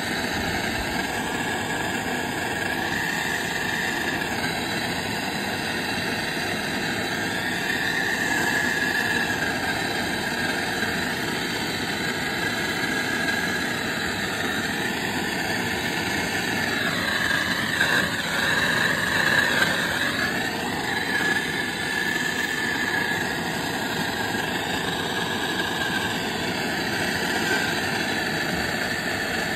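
Handheld soldering torch burning with a steady flame hiss while it heats a copper pipe fitting so the solder melts into the joint. It gets a little louder for a few seconds past the middle.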